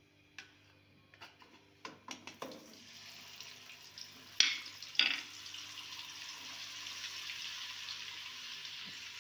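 Block of butter dropped into hot oil in a non-stick wok. It crackles in a few spatters at first, then settles into a steady sizzle as it melts and foams, with two sharp knocks of utensils against the pan about halfway through.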